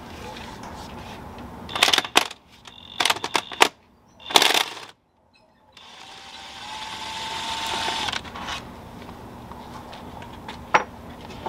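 Metal tools clinking and knocking as they are handled, then a small power tool whirring for about two seconds, followed by two more sharp clicks near the end.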